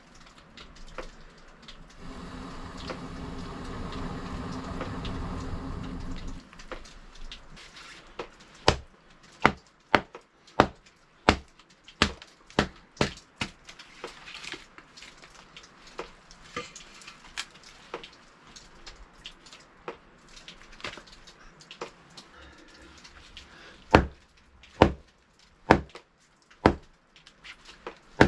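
Firewood being chopped: sharp wooden strikes, about one every two-thirds of a second, in a run from about a third of the way in and a second run near the end. Before the chopping there is a steady rushing noise for the first six seconds or so.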